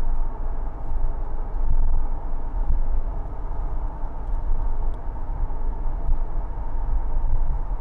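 Jeep driving on the road, heard from inside the cabin: a steady low rumble of engine and tyres with no change in pace.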